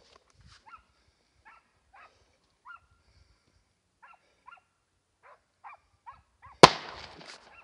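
Hunting dogs chasing a wild boar, giving short, faint, irregular barks and yelps. About six and a half seconds in, a single loud gunshot cracks out and echoes away.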